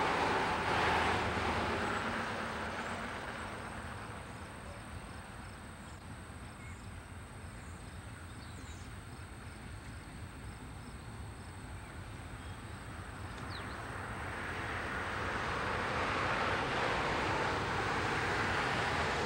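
Conrail GE diesel locomotives approaching with a train of empty coal cars, engines and wheels running. The sound fades to its quietest in the middle, then swells steadily over the last few seconds as the lead unit draws close.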